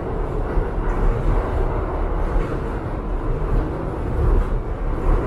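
New York City subway train running, a steady low rumble of the car on the rails.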